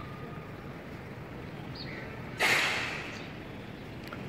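A sudden short burst of breathy noise about halfway through, fading over about half a second, over a steady low background hum.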